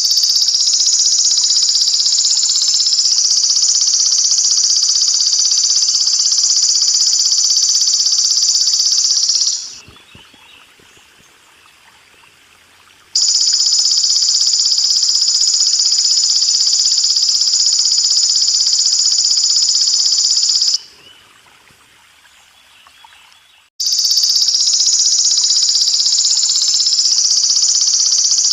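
Belalang emas (golden grasshopper) singing in long, unbroken high-pitched buzzes several seconds each, three times, with pauses of a few seconds between. A faint trickle of running water goes on underneath, heard plainly in the pauses.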